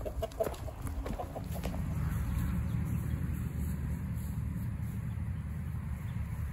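A few handling knocks as the camera is set down on the ground, then a steady low rumble.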